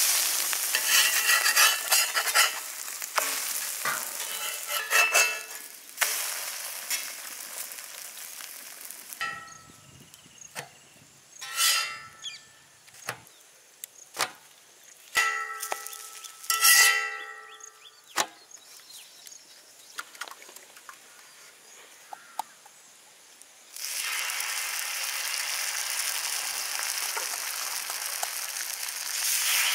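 Goat brain frying in a pan and being stirred: a metal spatula scrapes and clinks against the pan over sizzling, then a quieter stretch with scattered clinks. Late on, a steady hiss starts suddenly.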